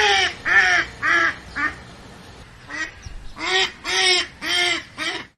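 A duck quacking in two runs of short, nasal calls, about two a second, with a brief lull between the runs.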